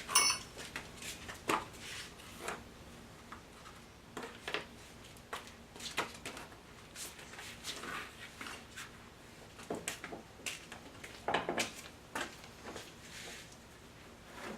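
Scattered light knocks and clicks at irregular intervals, a handful of them in all, with a faint hiss between.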